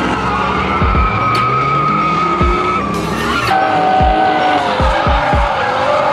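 Nissan 240SX drift cars sliding sideways, tyres squealing with the engine revving hard underneath. A steady high squeal gives way about halfway through to a lower one.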